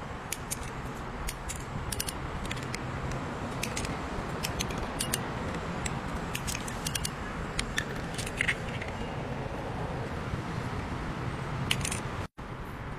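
Angle-cutting trunking shears snipping and closing on white PVC cable trunking: a run of sharp, irregular clicks and snaps over a steady background hiss, which cuts out for a moment near the end.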